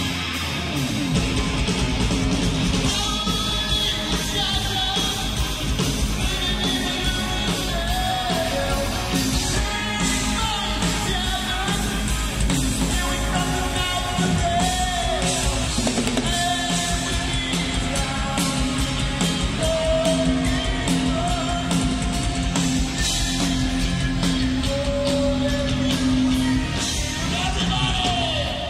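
A live heavy metal band playing, with a male lead vocal sung and yelled over distorted electric guitar, bass and drums.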